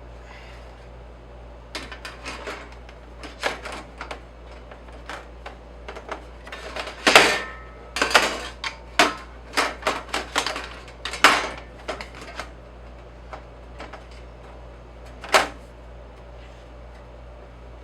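An irregular run of clicks and knocks from hard objects being handled and set down, at about one to three a second. The loudest come about seven and eleven seconds in, with a last one near the end, over a steady low hum.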